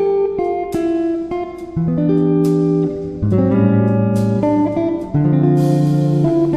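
Background music led by plucked guitar, with chords changing about once a second over a low bass line.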